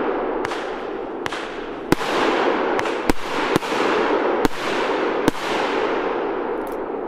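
A 30 mm salute firework cake firing, about nine sharp, loud bangs at irregular intervals, with their echoes running together into a continuous noisy wash between them.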